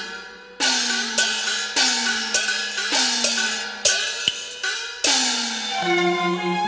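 Cantonese opera percussion: a gong and cymbals struck together about eight times in a steady beat, each stroke with a bright splash and a ring that sinks slightly in pitch. Near the end, bowed strings come in with held notes.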